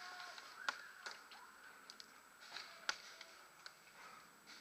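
Scattered faint sharp pops of paintball markers firing across the field, with two louder cracks about a second in and just before three seconds.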